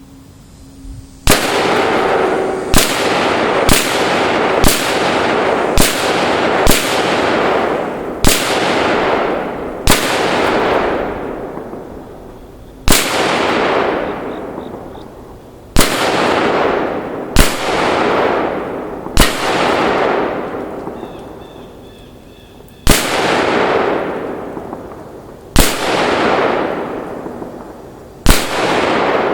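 Colt M4 6940 rifle firing .223 Remington 55-grain rounds, about fifteen single shots one to three seconds apart. Each crack is followed by a long rolling echo that fades over a second or two.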